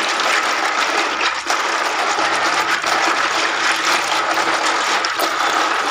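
Hands swishing and scrubbing a basin full of freshwater snails in water: steady splashing with many small clicks of the shells knocking together as the snails are rinsed clean.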